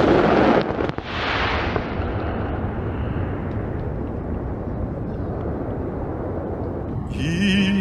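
Aerial fireworks shells bursting in two loud booms close together, followed by a low rumble that lasts several seconds. Near the end, music with singing comes back in.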